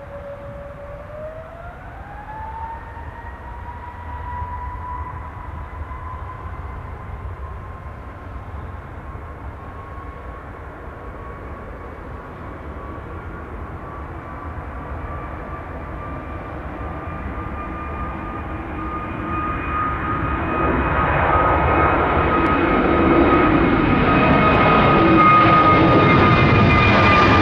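Airbus A320neo's CFM LEAP-1A turbofan engines spooling up to takeoff thrust. Their whine rises in pitch over the first few seconds, then holds steady through the takeoff roll. The engine noise grows much louder over the last several seconds as the jet lifts off and climbs overhead.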